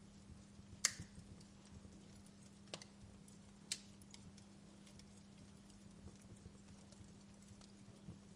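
Quiet fire crackling: faint hiss with sparse, irregular sharp pops, the loudest about a second in and two more near three and four seconds, over a steady low hum.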